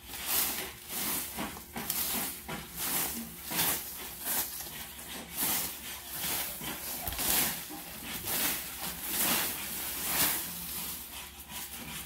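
Leaf rake scraping through dry leaves and grass in repeated strokes, about one a second.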